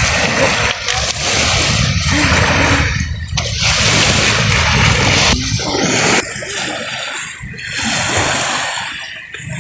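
Water splashing and sloshing up close, loud and nearly continuous, easing off about six seconds in.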